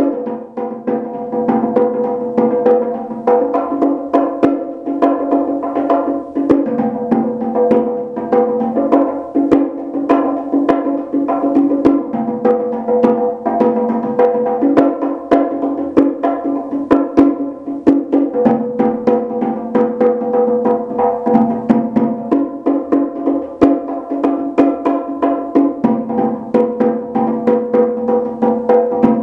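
A pair of bongo drums struck with bare hands in a fast, improvised freestyle rhythm: a continuous run of quick slaps and tones, the two heads sounding a lower and a higher pitch.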